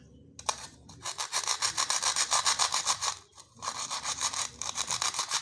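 Plastic toy knife sawing back and forth into a play-food toy orange, a rapid scraping rasp, in two spells with a short break about three seconds in.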